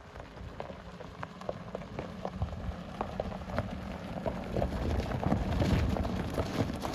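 Tyres of a BMW X5 crunching and popping over loose gravel as the SUV rolls slowly past. The sound grows louder as it comes closest, about five to six seconds in.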